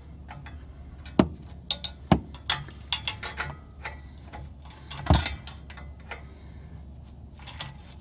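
Scattered clicks and clinks of hand tools working on metal car parts. Louder knocks come about one second in, two seconds in and five seconds in.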